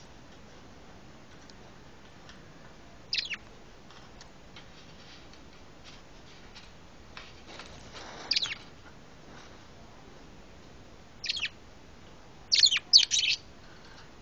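Pet lovebird giving short, shrill chirps: single calls about three, eight and eleven seconds in, then a quick run of three near the end, with faint clicks between them.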